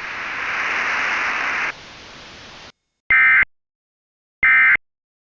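Radio static hiss, loud for nearly two seconds and then quieter, cutting off at about two and a half seconds. After a moment of silence come two short, loud bursts of Emergency Alert System SAME data tones about a second and a half apart: the end-of-message signal that closes a weather radio alert.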